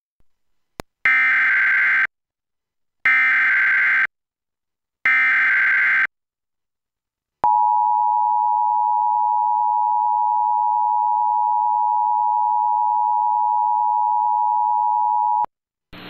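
Emergency Alert System header for a tornado warning: three one-second bursts of harsh, screeching SAME digital data, a second apart, followed by the two-tone EAS attention signal, a steady tone held about eight seconds.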